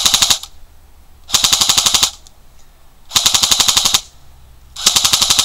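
D-Boys M4 airsoft electric gun firing on full auto in short bursts for a rate-of-fire test: a rapid mechanical rattle of shots, one burst ending just after the start, two full bursts, and a fourth starting near the end, each under a second long.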